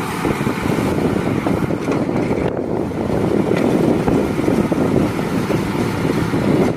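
A tractor engine running steadily with a Massey Ferguson Hesston 1745 round baler driven off it, taking hay in on a test run.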